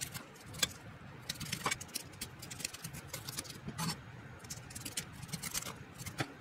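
Cleaver blade slicing down a cooked sweet-corn cob on a wooden cutting board, crisp irregular cutting and crackling with kernels dropping onto the board; a few sharper clicks stand out.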